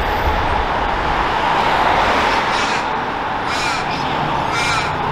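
Steady road traffic noise, with a car passing close by at the start. A bird calls three times, about a second apart, from about two and a half seconds in.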